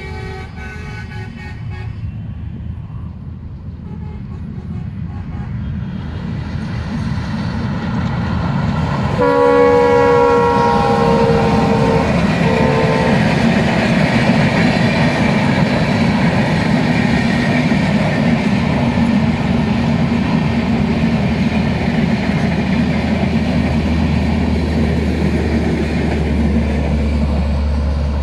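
Diesel-hauled Bangladesh Railway intercity train (Sundarban Express) passing: the locomotive's multi-tone horn sounds at the start, then gives a long blast and a short toot about nine seconds in. Steady noise of the coaches rolling past builds and stays loud to the end.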